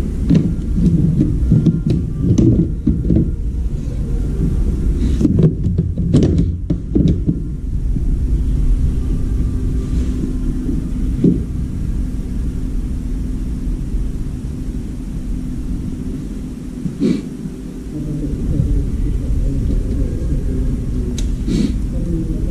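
A steady low rumble with scattered knocks and plastic clatter from a front-loading washing machine's door and trim being handled and taken off.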